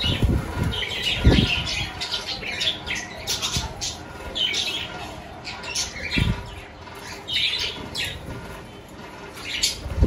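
A flock of budgerigars chattering and squawking, with short, sharp calls one after another and a few low thumps, the loudest about a second in.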